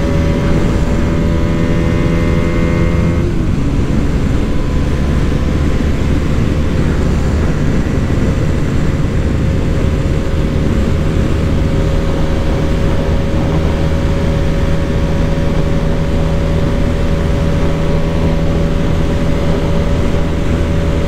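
Bajaj Dominar 400's single-cylinder engine accelerating hard at highway speed over heavy wind rush. Its pitch climbs in fourth gear, drops with an upshift to fifth about three seconds in, then climbs slowly as the bike nears its top speed.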